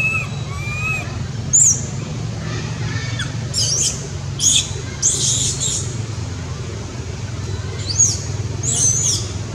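Baby long-tailed macaque crying: a short rising-and-falling coo right at the start, then a series of short, high, thin squeals scattered through, over a steady low background rumble.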